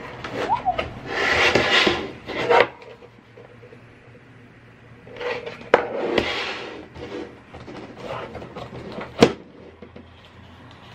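Hard plastic packaging handled during an unboxing: a plastic case opened and a clear plastic tray rubbed and scraped, with two sharp plastic clicks, the louder near the end.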